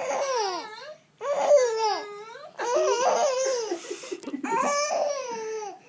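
A baby laughing in four long, high-pitched bursts with short breaks between them.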